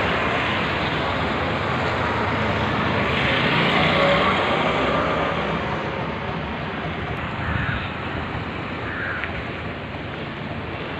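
Steady rushing outdoor background noise, easing slowly after the middle.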